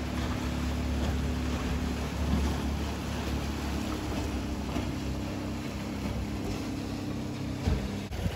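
Outboard motor of a small open boat running steadily at speed as it passes, over wind and sea hiss. The engine sound stops abruptly near the end, just after a couple of short knocks.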